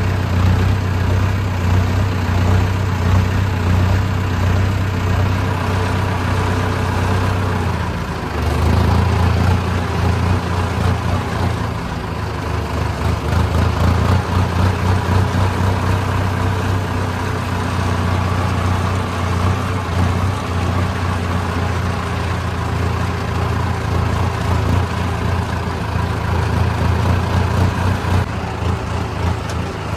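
Tractor diesel engine running steadily under way, heard close from the driver's seat. About eight seconds in, the engine note dips briefly, then runs a little louder.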